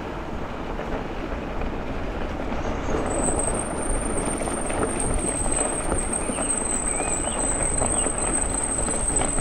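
E-bike rolling along a trail: steady tyre and wind rumble that grows a little louder, with a thin, steady high-pitched whine joining about three seconds in.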